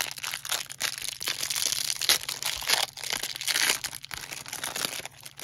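Topps Update baseball hanger box being torn open and its packaging crinkled: an irregular run of crackles and tearing with no pause.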